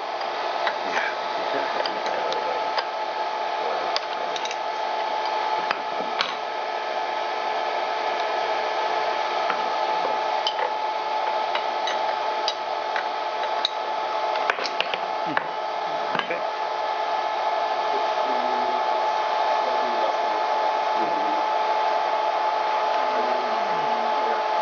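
ShopBot CNC router spindle running steadily, a whir with a constant high whine, with scattered light clicks and knocks.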